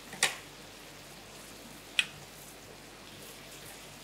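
Kitchen knife cutting through boiled potatoes and striking the metal plate beneath: two sharp clicks about two seconds apart. A faint steady simmer from the pan runs underneath.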